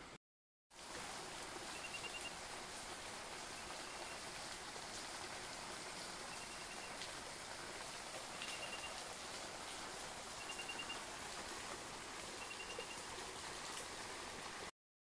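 Steady rush of a mountain stream, with a small animal's short, high, rapidly pulsed call repeating about six times, roughly every two seconds.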